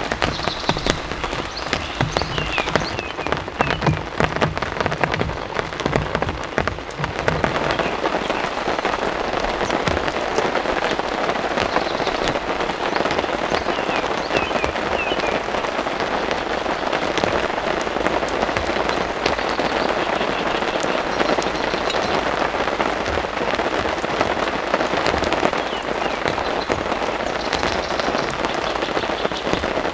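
Steady rain falling, a dense patter of countless drops striking a surface, growing fuller about seven seconds in.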